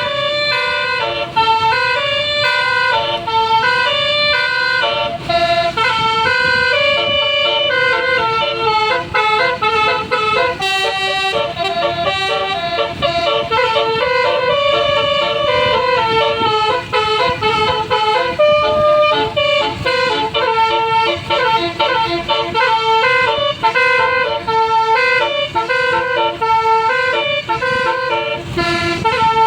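Telolet basuri tour-bus horn, a multi-tone air horn, playing a tune as a continuous run of stepped notes.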